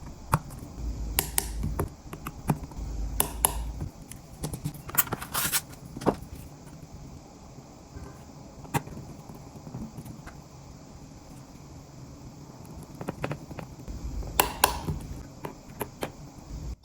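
Scattered sharp clicks and ticks of small metal tools and screws on the iPhone 13 Pro's internal cover plate as its screws are set and tightened with a torque screwdriver. Low handling rumble runs through the first few seconds and comes back near the end.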